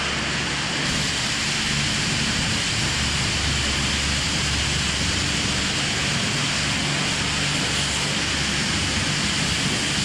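Pressure-washer jet spraying mud off a buggy: a steady hiss of water with the washer's pump humming underneath, getting slightly louder about a second in.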